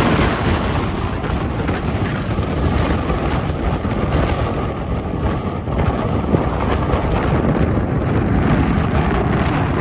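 Wind buffeting the microphone over the steady rumble of a moving vehicle on the road.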